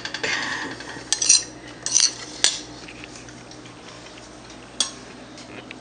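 Cutlery clinking against ceramic dinner plates: several sharp, ringing clinks in the first half and one more near the end.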